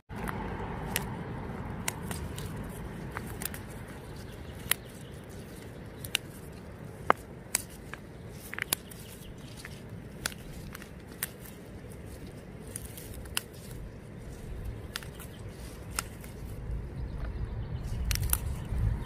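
Leafy vegetable stems being picked by hand: irregular sharp clicks and snaps, about one or two a second, over a low steady rumble.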